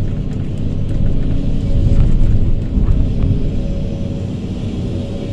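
Hydraulic excavator's diesel engine running under load, heard from inside the cab as the bucket empties sand into a dump truck and swings back, with a steady high hum over the low rumble. The engine swells briefly about two seconds in.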